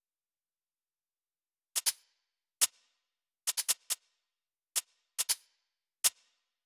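Programmed shaker samples played alone in a sparse, syncopated dubstep groove at 140 BPM. Short, sharp hits come in singly and in quick runs of two or three, starting almost two seconds in.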